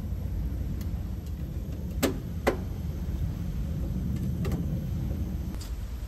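Two sharp plastic clicks a half-second apart, then a few fainter ticks, from hand work on the wiring of an air-conditioner outdoor unit's electrical box as a new fan circuit board is connected, over a steady low rumble.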